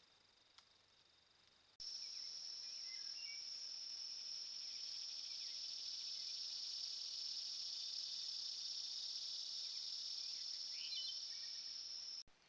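Steady, high-pitched drone of insects in summer woods, with a few short bird chirps. It cuts in abruptly about two seconds in, after near silence, and stops just before the end.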